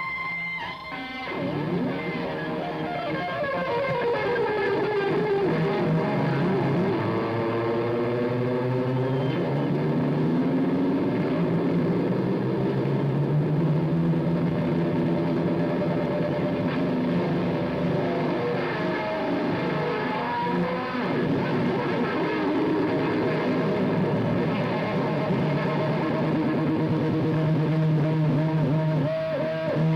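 Heavily distorted electric guitar played live through an amplifier. A steady high whine breaks off about a second in, then gliding, bending notes follow for several seconds before it settles into held chords.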